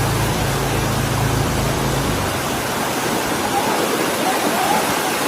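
Steady, even rushing noise, with a low steady hum under it that stops about two seconds in.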